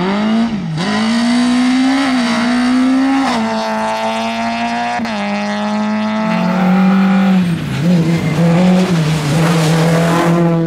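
Citroën Saxo rally car's four-cylinder engine revving hard as it drives through a corner and away, with several quick gear changes, each a sudden drop in pitch followed by a climb.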